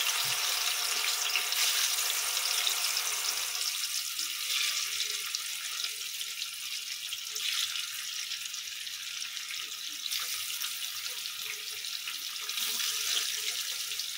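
Hilsa fish steaks, rubbed with salt and turmeric, sizzling in hot oil in a kadai, a steady hiss with a few brief louder surges as more pieces go into the pan.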